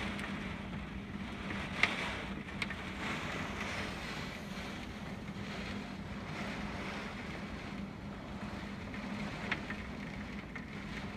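Hurricane wind and heavy rain: a steady rushing noise with a faint steady low hum under it, broken by a few sharp taps, one about two seconds in and another near the end.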